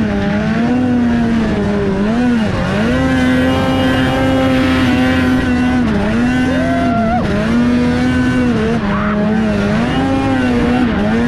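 2003 Polaris RMK 700 snowmobile's two-stroke twin engine running hard at high revs while climbing a powder slope. The revs dip briefly and recover several times as the throttle is eased and reapplied.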